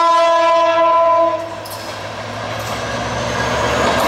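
Diesel locomotive's air horn sounding one steady blast of about a second and a half, a warning for an ungated level crossing. After it, the locomotive's engine and wheels grow steadily louder as the train approaches at speed.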